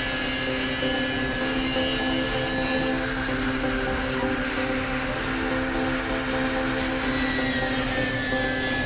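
Electric angle grinder with a thin cutting disc running at speed and cutting a slot into a hollow aluminium door-frame profile: a steady motor whine with a high, even cutting tone.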